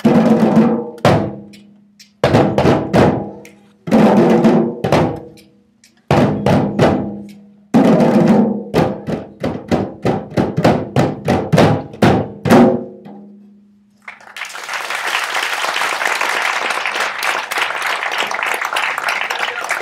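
A group of djembes played together with bare hands: sharp strokes in short unison phrases with brief breaks between them, stopping about two-thirds of the way through. About a second later, applause starts and carries on steadily.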